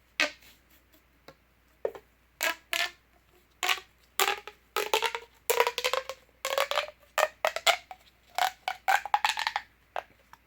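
Plastic pop tube fidget toy being stretched and squashed, its ribbed sections popping in a string of short snaps, many with a brief pitched ring. The pops come more often in the second half.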